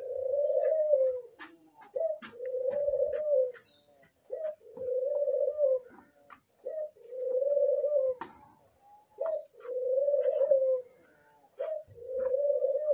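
Albino dove cooing its breeding call over and over: a short note followed by a long, held coo, about six times, one every two seconds or so. Faint light clicks come between the coos.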